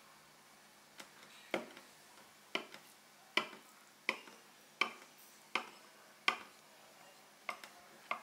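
Knife cutting down through a whole baked pumpkin filled with melted cheese: a run of sharp crunches as the blade saws through the baked rind, roughly one every three-quarters of a second, beginning about a second in.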